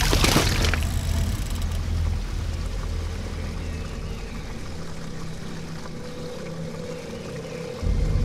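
A body crashing down into a shallow stream, a loud splash that dies away within the first second. It is followed by a low, steady drone that swells again near the end.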